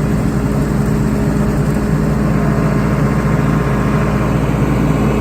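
Turbocharged John Deere diesel engine of an MEP-805B 30 kW tactical quiet military generator running steadily at its governed 60 Hz speed under a very light load. It gives an even, unchanging low hum and is fairly quiet for a diesel set.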